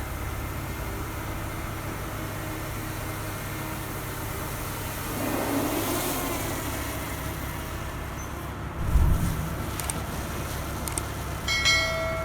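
Steady low background rumble, with a dull thump about nine seconds in and a short high-pitched tone near the end.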